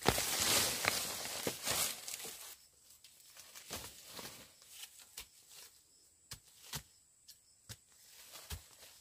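A burst of rustling and tearing for about two and a half seconds, then quieter, with scattered light knocks and taps.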